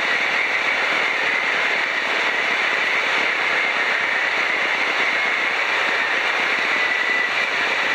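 Piper PA-12 Super Cruiser in flight: the steady rushing drone of its engine, propeller and airflow heard in the small cabin, with a faint steady high whine.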